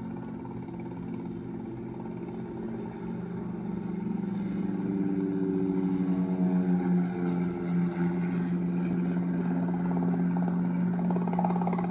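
Robinson R22 helicopter hovering and turning in place, its four-cylinder Lycoming piston engine and rotor running steadily with a rapid beat from the blades. The sound grows louder about four seconds in, with slight shifts in pitch as it swings around.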